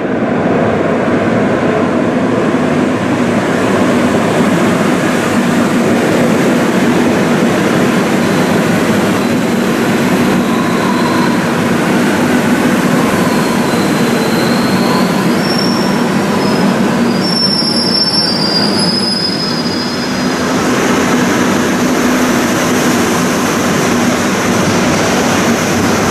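Madrid Metro train running into an underground station: a loud, steady rumble of wheels on rail, with thin high-pitched wheel squeals about halfway through.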